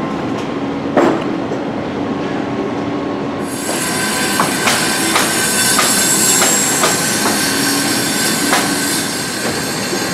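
Sharp repeated knocks of nails being driven into the coaster's laminated wood track, roughly two a second, over a steady high hiss and squeal that sets in a few seconds in.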